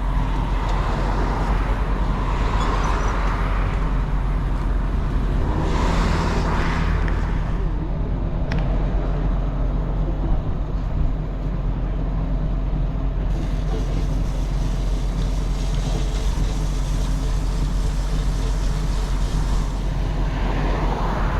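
Steady road traffic noise, with vehicles passing about two and six seconds in and again near the end.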